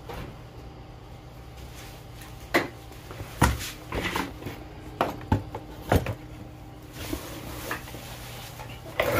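Brackets, screws and a plastic bug deflector visor being handled on a workbench: several separate knocks and clicks, with a louder clatter near the end, over a steady low hum.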